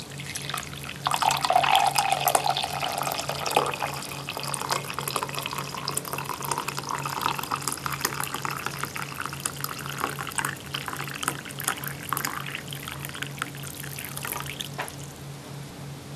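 Coffee poured in a thin stream into a mug, splashing and trickling, the pitch of the pour rising slowly as the mug fills, over a low steady hum.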